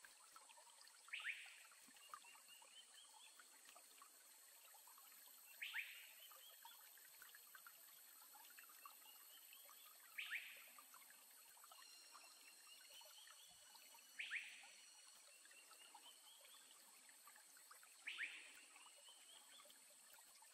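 Faint forest ambience: an animal call comes five times, about every four seconds, each a sharp falling note followed by a short run of rising notes, over a steady high-pitched hum.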